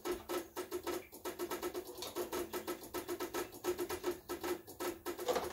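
Rapid, steady electrical clicking with a pulsing hum, about ten clicks a second: an annoying chatter from the ATV's electrical setup just after a short has killed its lights.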